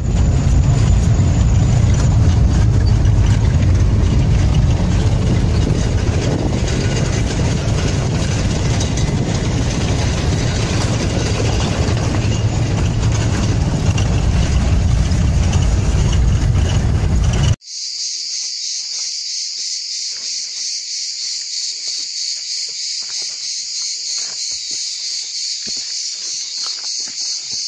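Car driving along a road, heard from inside the cabin as a loud, steady low rumble of engine and road noise. About seventeen seconds in it cuts off abruptly and is replaced by a steady, high-pitched buzz of insects.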